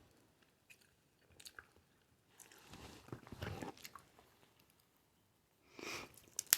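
Soft, close-miked chewing of crab leg meat: two short spells of chewing and mouth noises, with a few faint clicks in between.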